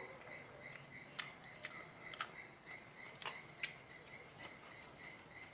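Faint, steady chirping of crickets, an even pulsing trill that runs on without a break. A handful of sharp clicks sound over it, the loudest between about one and four seconds in.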